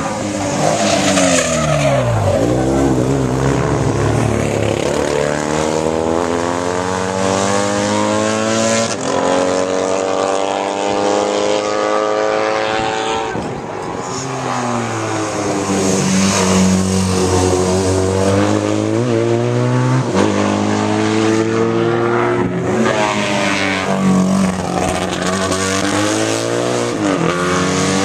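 Racing sidecar outfits' engines at full race pace, one passing close with its pitch swooping down and back up about two seconds in, then engines revving hard. The pitch climbs and drops back several times as they change gear.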